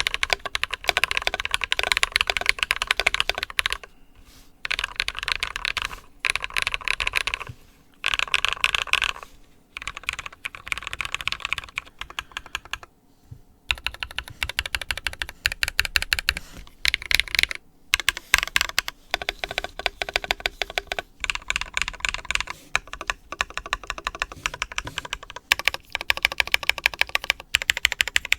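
Typing on a mechanical keyboard with Krytox-lubed Glorious Panda tactile switches and PBT Cherry-profile keycaps. Fast runs of keystrokes are broken by several short pauses.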